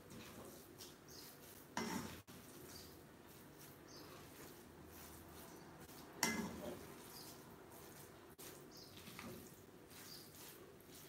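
Spatula scraping and clinking against a stainless steel kadai while stirring a thick quinoa and tomato mixture. Two louder knocks of the spatula on the pan come about two seconds in and about six seconds in.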